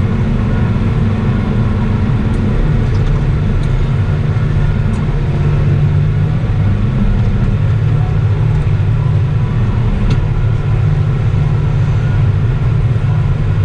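Tractor engine running steadily at working revs with the mowers in work: an even low drone with no change in pitch.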